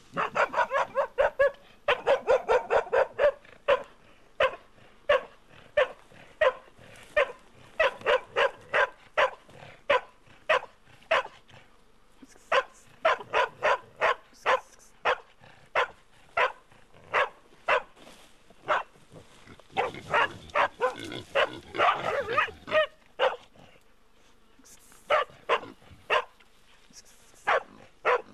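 A hunting dog barking over and over, in fast runs of several barks a second at first and then about two a second, with a louder, more jumbled stretch of barking about twenty seconds in.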